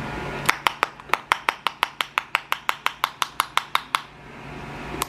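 Quick, even hand clapping, about six claps a second for roughly three seconds, then stopping. A steady low fan hum runs underneath.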